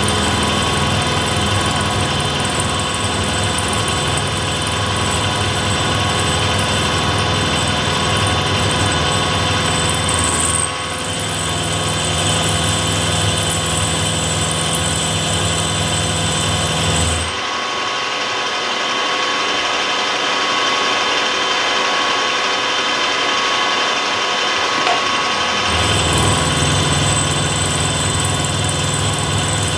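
Vertical milling machine running with a small 1/4-inch end mill cutting a slot in a metal sleeve: a steady, dense mix of motor hum, spindle whine and cutting noise. The sound shifts abruptly about 11 seconds in, and the low hum drops out from about 17 seconds in to about 26 seconds in.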